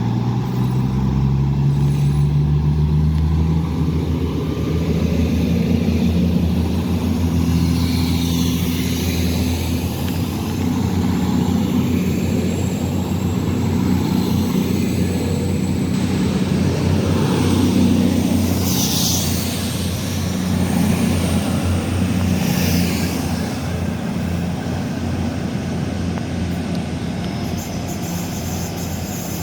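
Diesel train engine running under load: a deep rumble whose note rises over the first few seconds, then holds steady.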